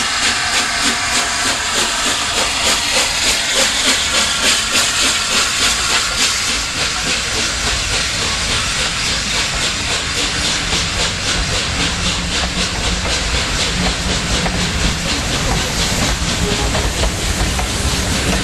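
LNER Peppercorn A1 three-cylinder Pacific steam locomotive 60163 Tornado pulling away with its train: loud steam hiss with rhythmic exhaust beats, about two to three a second over the first six seconds. The sound then steadies, with a low rumble as the coaches roll past.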